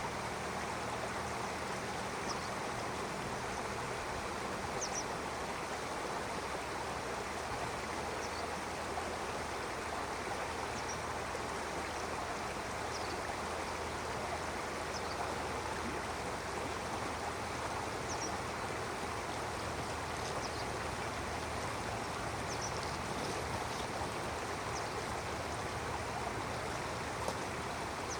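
Stream water flowing and lapping, a steady rushing hiss. Short, faint, high bird chirps come now and then over it.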